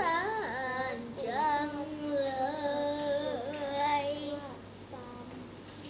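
A boy chanting Thai verse in the sung thamnong sanoh recitation style, drawing out long notes with a wavering pitch and sliding between them. The voice trails off about four and a half seconds in.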